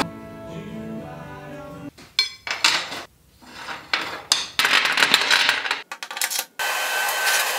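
Steel tubes and a welding clamp clinking and knocking against a perforated steel welding table as they are handled and set in place. From about two seconds in comes an irregular run of sharp metal clinks.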